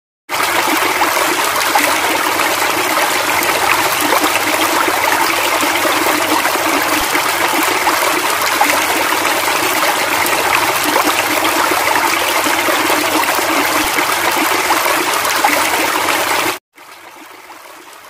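Rushing stream water, a steady loud rush that cuts off suddenly near the end, leaving only a faint hiss.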